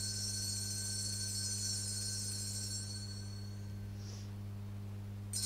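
Sanctuary bell rung at the elevation of the chalice during Mass: a cluster of high, ringing tones that die away over about three seconds, then ring out again near the end. A steady low hum runs underneath.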